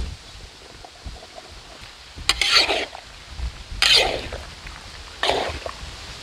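A metal spatula stirring a large metal kadai full of raw banana slices in gravy, scraping and turning them in four short strokes about a second and a half apart, starting about two seconds in.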